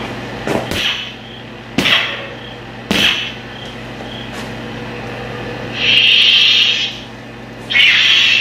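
Lightsaber sound board in an upgraded Master Replicas Graflex-style lightsaber: a steady low hum, with three sharp swing or clash effects in the first three seconds as the blade is swung, then two louder hissing bursts of about a second each near the end.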